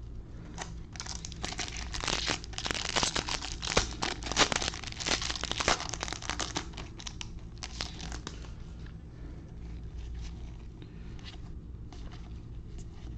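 Foil wrapper of a 2021 Bowman baseball card pack torn open and crinkled by gloved hands: dense crackling for the first half or so, then fading to sparse faint clicks as the cards are handled.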